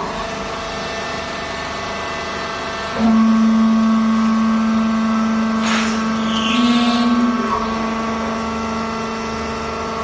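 A machine's motor running with a steady hum made of several fixed tones, just after spinning up. About three seconds in it gets clearly louder, with a strong low drone added, as if taking on load.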